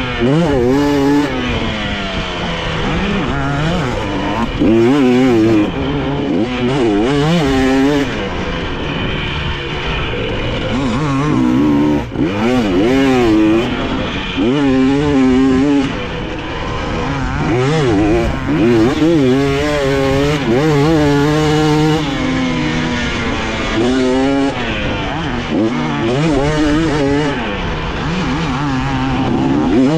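Dirt bike engine revving up and down over and over as the throttle is worked around a motocross track, its pitch rising and falling every second or two.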